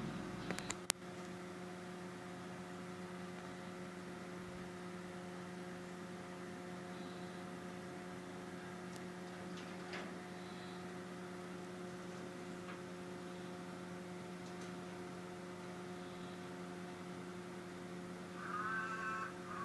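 Steady electrical hum, one low tone with evenly spaced overtones. A couple of sharp clicks come just under a second in, and a brief wavering high-pitched sound comes near the end.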